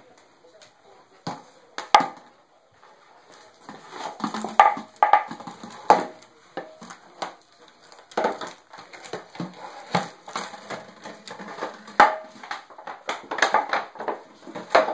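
A dog chewing and crunching an empty plastic bottle, the plastic crackling and knocking against a wooden floor in irregular bursts.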